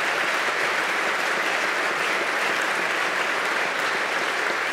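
Large crowd applauding, a steady, dense clapping that holds at an even level.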